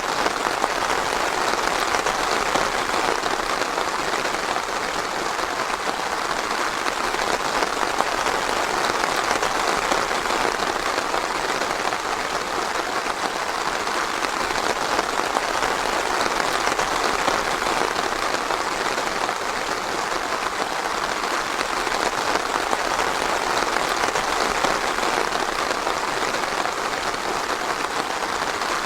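Steady rain falling in a forest, a dense, even patter of drops with no thunder.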